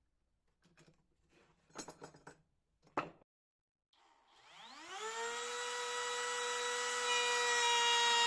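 A few light knocks and clicks, then a homemade bandsaw mill starts up about four seconds in: its whine rises in pitch as it comes up to speed, then runs steady and grows louder.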